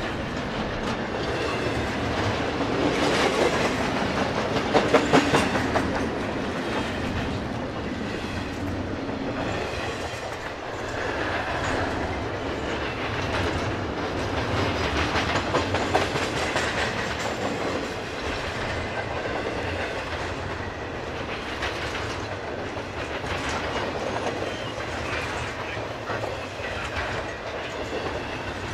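Double-stack intermodal well cars of a freight train rolling past, steel wheels clicking over rail joints over a steady rumble, with a cluster of louder clacks about five seconds in.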